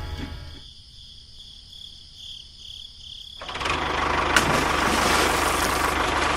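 Background music fades out. About three and a half seconds in, a mini tractor's small engine comes in, running steadily with a fast, even low beat.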